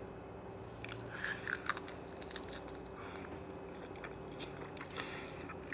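Close mouth sounds of biting into and chewing air-fried twako, a Cambodian sausage: a few crisp crunches about a second in, then softer chewing clicks.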